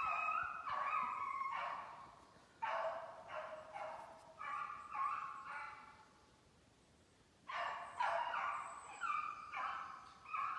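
Beagles baying as they run a snowshoe hare track: drawn-out bawling cries with several voices overlapping. There is a pause of about a second and a half just past the middle.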